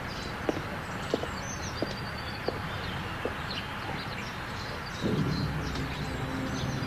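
Footsteps on stone steps, one about every two-thirds of a second, with birds chirping in the background. About five seconds in, low, ominous music starts and holds.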